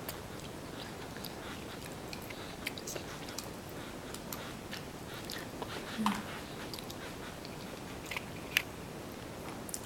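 A toddler chewing and biting food: faint, scattered small mouth clicks over a steady low room hiss.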